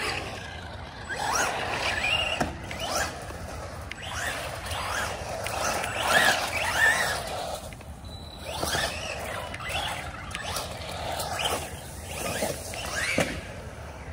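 Arrma Senton 3S RC truck's electric motor whining, its pitch rising and falling again and again as the truck accelerates and slows on asphalt.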